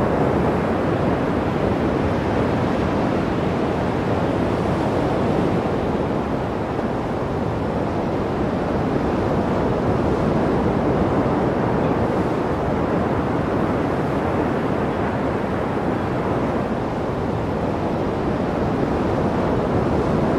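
Steady rushing wind noise on the microphone of a camera carried aloft by a flying unmanned aerial vehicle.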